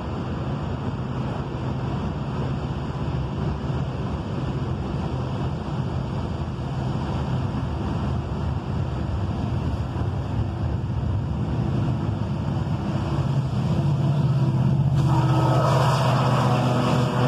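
Norfolk Southern freight cars rolling past on the rails with a steady rumble. About two-thirds of the way in, diesel locomotives within the train come through, and their engine hum and cooling-fan noise grow louder.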